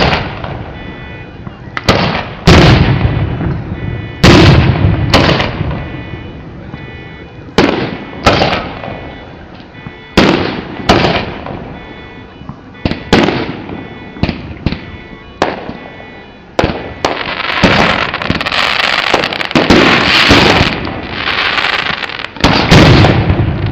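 Fireworks display: aerial shells bursting in loud bangs one after another, about every one to two seconds, each trailing off in an echo. From about seventeen to twenty-one seconds in, a dense stretch of crackling takes over before the bangs resume.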